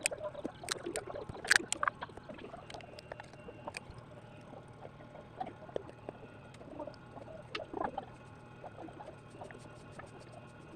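Scattered light clicks and taps from small tools and phone parts being handled during a phone screen repair, busier in the first couple of seconds and sparser after.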